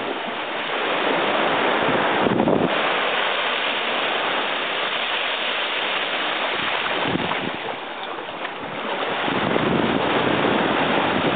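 Wind blowing across the microphone over small waves washing onto a sandy shore: a steady rush of noise that eases and swells.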